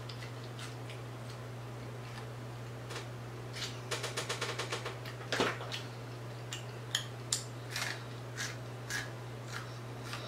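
Close-miked chewing of crispy fried seafood: scattered crunches and mouth clicks, with a quick rattle of crunches about four seconds in. A steady low electrical hum runs underneath.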